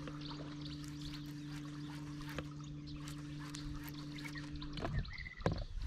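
Electric trolling motor humming steadily as the boat creeps forward, cutting off suddenly about five seconds in, with small drips and laps of water against the hull.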